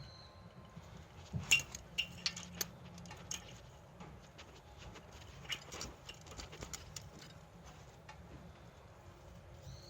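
Scattered sharp clicks and light clinks, in a quick cluster in the first few seconds and a few more later on.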